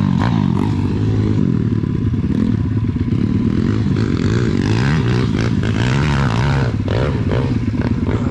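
Several SSR pit bikes' small single-cylinder four-stroke engines revving up and down together, the pitch rising and falling over and over as the bikes accelerate and back off.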